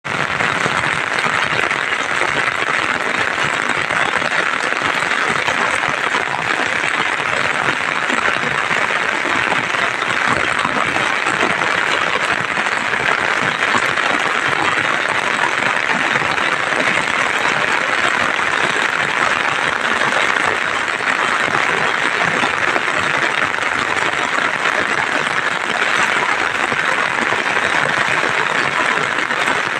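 Rain falling steadily: a dense, even hiss of drops with no break.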